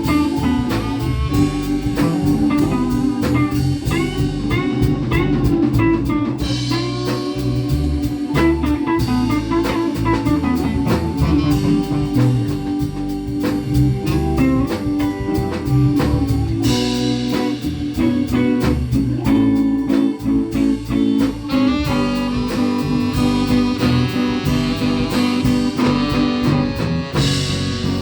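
Blues band playing an instrumental passage: a guitar lead with bent notes over drums and a low bass line.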